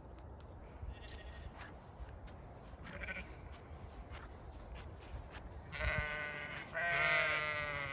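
Zwartbles sheep bleating: fainter calls early on, then two loud, wavering bleats near the end, one right after the other.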